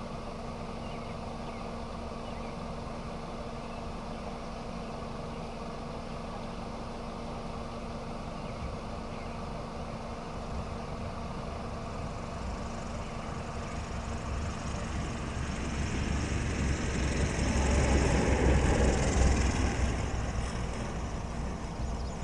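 Small single-engine propeller airplane's engine running as the plane rolls along the runway toward and past, growing steadily louder to a peak about 18 seconds in, then fading.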